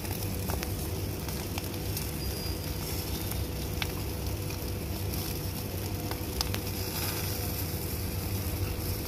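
Chicken grilling over an open fire, sizzling steadily with scattered sharp crackles and pops, over a steady low rumble.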